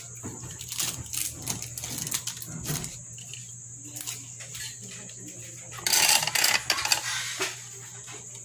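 Small clicks and taps of fingers handling and prying at a turbo broiler's small convection-fan motor as it is opened up, over a steady low hum. About six seconds in comes a loud scratchy rustle lasting about a second, followed by a few more taps.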